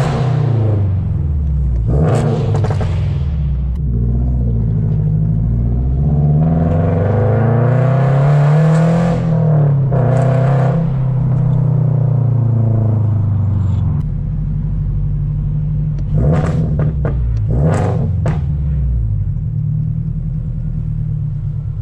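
2023 Toyota GR86's 2.4-litre flat-four through a straight-piped exhaust, heard from inside the cabin while driving. The note climbs as the car accelerates and drops back as it lifts off, then settles to a lower steady rumble as the car slows, with a few short sharp bursts near the end.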